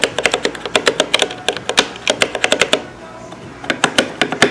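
Stabilized keys on a XISOGUU budget mechanical keyboard with red linear switches pressed over and over in quick succession: a rapid run of clacks that pauses briefly a little before three seconds in, then starts again. The stabilizers sound solid, good as they come out of the box.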